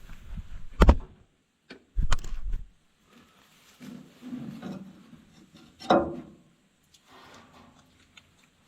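A few sharp knocks and clunks, about a second in, at about two seconds and near six seconds, with quieter scuffling between.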